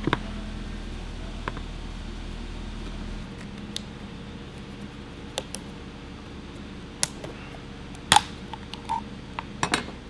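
A knife blade stabbing and prying at the metal bottom of an Easy Cheese aerosol can on a plastic cutting board: a string of sharp clicks and knocks, the loudest about eight seconds in. The blade has gone into the bottom of the can, and the can does not burst.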